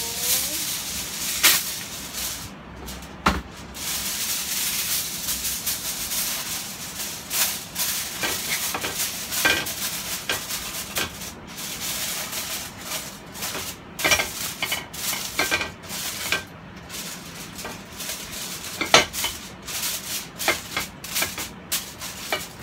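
Aluminium foil crinkling and crackling as a sheet is spread over a frying pan and crumpled and pressed in to line it. The crackling is irregular, with a few sharper clicks near the start.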